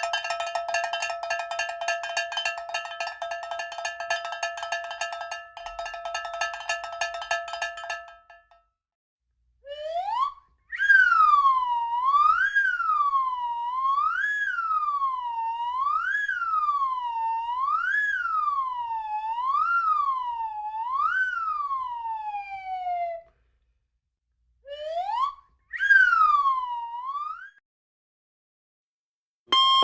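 Siren that glides up and then wails up and down about every two seconds, stops, and gives two short rising whoops. Before it, for about the first eight seconds, a steady rapidly pulsing ringing tone.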